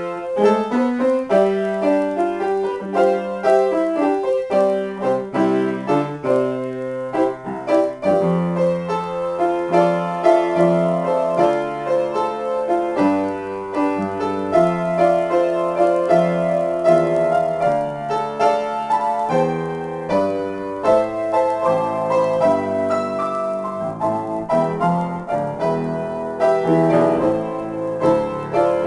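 Solo grand piano played as an improvisation: chords and a melody over a moving bass line, continuous throughout.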